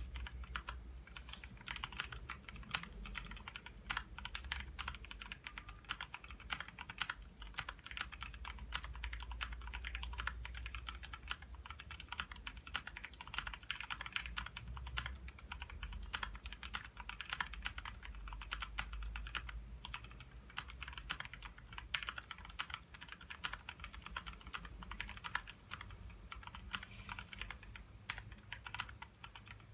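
Continuous fast typing on a Leaven K550 mechanical keyboard with lubed Outemu Brown tactile switches and lubed, clipped, holee-modded stabilizers, foam-dampened: a dense, irregular stream of keystroke clacks with occasional louder spacebar or stabilized-key strikes.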